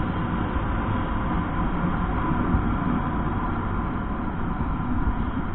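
Honda RS150R's single-cylinder engine running steadily at a constant speed on the move, with wind and road rush.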